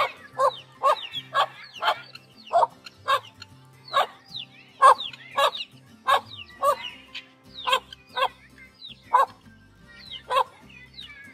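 Chicks peeping in high, falling chirps over a steady run of short, loud animal calls about twice a second.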